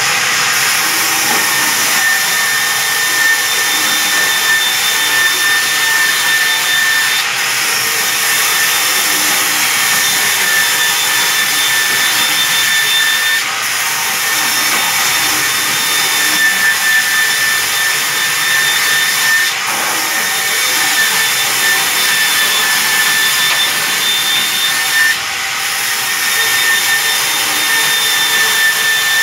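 Large vertical band saw running and ripping sal wood planks lengthwise, a steady loud noise with a high whine. The whine breaks off briefly every few seconds and then returns.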